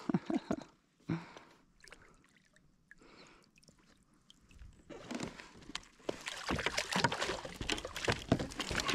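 Water splashing and sloshing as a hooked trevally thrashes at the surface beside a kayak. The splashing starts about halfway through and grows louder, with many sharp clicks and slaps.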